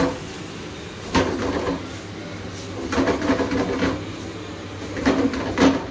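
A plastic spatula stirring and scraping beef mince around a non-stick frying pan, knocking against the pan about a second in and twice near the end.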